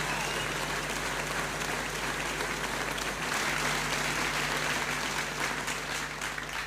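A crowd applauding and cheering, with a whistle from the crowd dying away just at the start; the clapping thins out into separate claps and gets quieter near the end.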